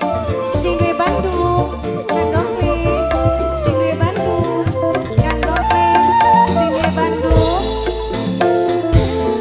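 Instrumental break of live dangdut music: a gliding melody line over a heavy bass line and steady drum and shaker hits, with no singing.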